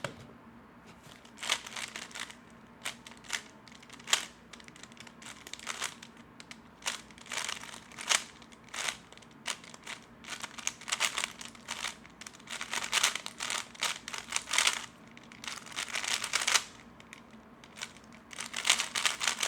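3x3 Rubik's Cube being turned fast during a timed speedsolve: rapid plastic clicking of the layers in quick bursts, with short pauses between the bursts.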